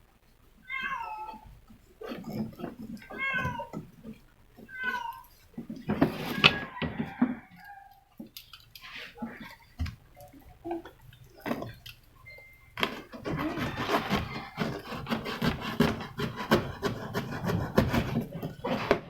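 A cat meowing: four short meows in the first five seconds. Then rustling and knocks of things being handled, densest over the last six seconds.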